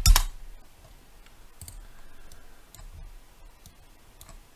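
Clicks from a computer keyboard and mouse: one sharp click at the start, then four faint clicks spread over the next few seconds.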